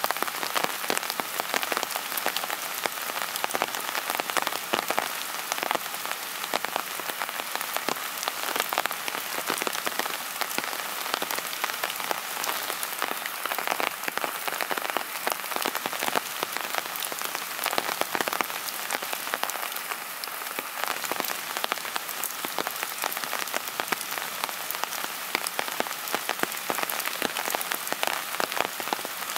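Steady rain falling, heard as a dense hiss crowded with the small ticks of individual drops.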